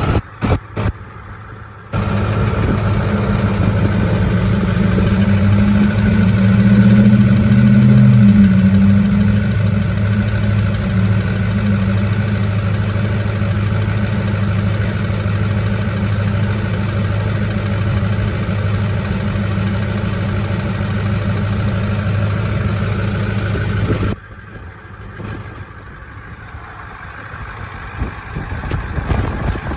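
Ford 6.4 L Power Stroke V8 diesel idling steadily, still purging air from its fuel system. It rises briefly in pitch a few seconds in, then drops abruptly to a quieter running sound near the end.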